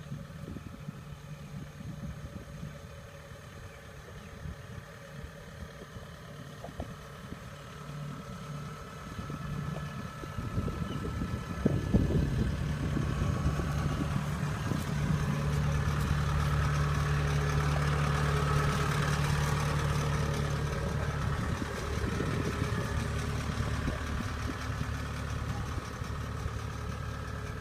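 Diesel engine of a Kubota DC-70 tracked combine harvester running steadily, growing louder as the machine comes close and then holding a steady hum.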